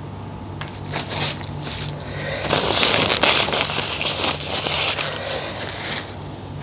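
Paper tissue crinkling and rustling as hands are wiped with it, for about three seconds from a couple of seconds in, after a few light clicks.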